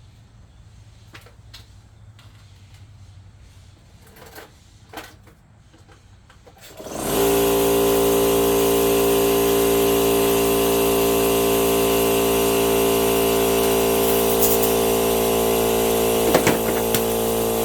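Air compressor starting up about seven seconds in, then running steadily and loudly at an even pitch; before it starts there are only a few light knocks.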